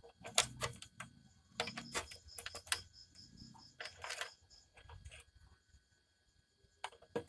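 Scattered light clicks and rattles of wires and plastic connectors being handled inside the open plastic cabinet of a mini stereo system, with a quiet pause shortly before the end.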